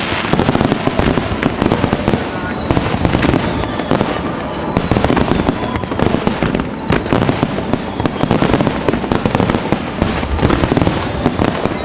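Fireworks finale barrage: a dense, unbroken run of shell bursts with bangs and crackling following each other many times a second and overlapping into a continuous rumble.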